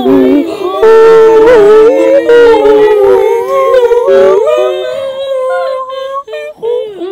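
A chorus of howls: several wavering pitches held at once, sliding up and down together, that thins out after about four and a half seconds into a few short, broken wails.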